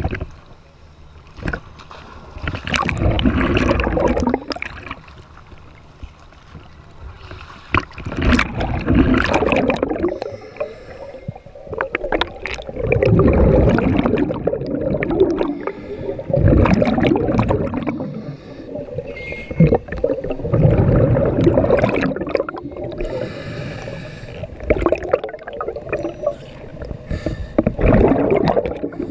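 Scuba diver breathing through a regulator underwater: surges of exhaled bubbles gurgling about every four seconds, with quieter stretches between.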